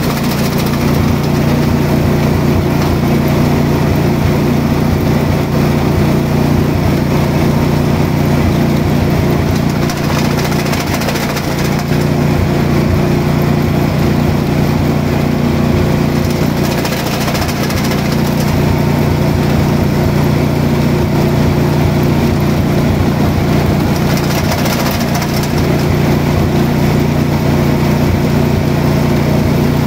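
A machine running steadily with an even drone.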